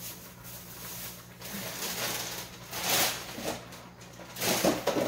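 Kitchen handling noises: two brief rustling, clattering bursts about three and four and a half seconds in, over a low steady hum.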